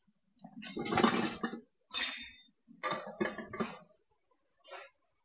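Steel transmission gears and shaft from a loader's ZF gearbox being handled: a few separate metallic clinks and scrapes, one at about two seconds ringing briefly.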